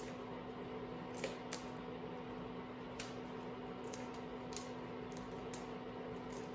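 Scattered light clicks and taps from handling small parts and tools, over a steady low hum of room tone.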